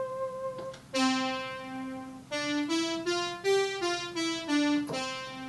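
Roland JU-06 Boutique synthesizer playing a short keyboard phrase: a held note, then a bright new note about a second in, a quick run of notes stepping up and back down, and another held note near the end.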